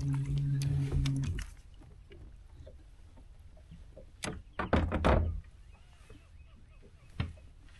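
A steady motor hum cuts off about a second and a half in. Then come a few knocks and clatters on the kayak, loudest in a short cluster around five seconds in, with a single knock near the end.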